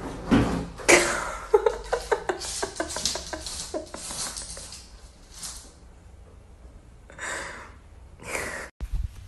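Wooden kitchen drawer clicking and rattling on its metal slides as a cat paws it open, a quick string of knocks over the first few seconds. Two short hissing bursts follow near the end.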